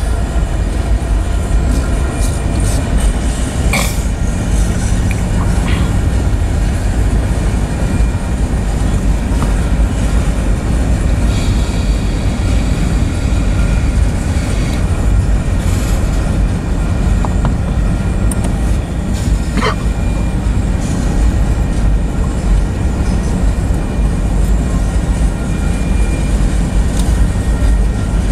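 Covered hopper cars of a freight train rolling steadily past, their wheels rumbling and clattering on the rails. Two brief sharp sounds cut through, one about 4 seconds in and another about 20 seconds in.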